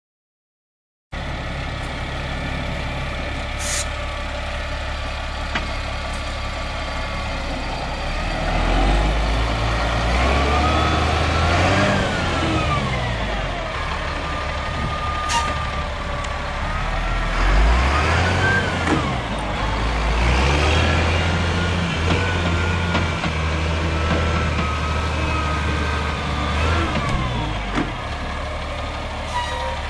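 Caterpillar 3126 inline-six diesel of a Sterling L80 semi tractor running, starting about a second in: a steady idle at first, then revving up and down several times as the truck is driven.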